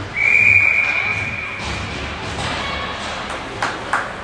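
A referee's whistle blown once in an ice rink: a single high, steady note, loudest at first and fading away over about two seconds. Two sharp knocks follow near the end.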